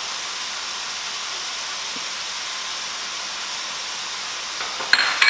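Ground beef, onions and jalapeños sizzling in a hot pot: a steady, even hiss. A couple of sharp knocks near the end.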